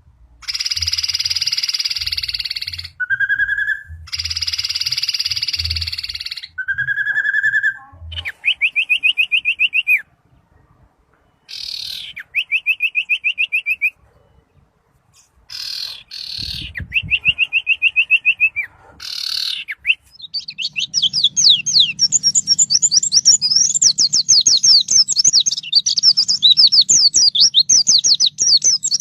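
Small songbirds singing: harsh buzzy calls and short rapid trills set apart by brief pauses, then, about two-thirds of the way in, a long, fast, high twittering song of tightly packed rolling notes.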